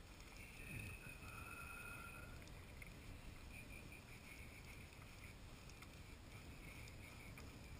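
Near silence: a faint low rumble of wind and water against a small boat, with faint high tones coming and going.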